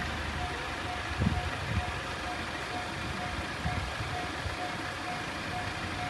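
Japanese railway level-crossing alarm sounding the JR standard electronic bell: a steady, evenly repeating ding at about two a second.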